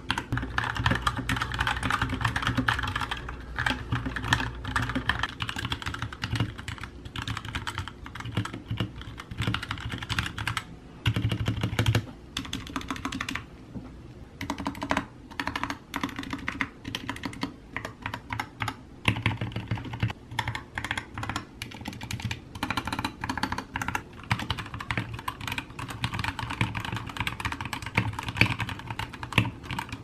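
Fast typing on a Gamdias Hermes E3 60% mechanical keyboard modded with pennies sealed in resin, foam, painter's tape on the PCB and lubed stabilizers, a steady stream of key clacks picked up by a camera's built-in microphone. A short pause about halfway through, after which the typing goes on with PBT keycaps fitted, on a plastic fold-up table.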